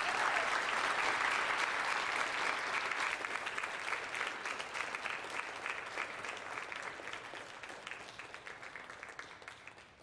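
Audience in a lecture hall applauding after a talk, a dense clapping that slowly fades and dies out near the end.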